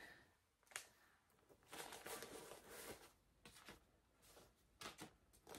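Faint rustling and handling of a cross-stitch project and its materials, with a light click under a second in and several short spells of rustling after it.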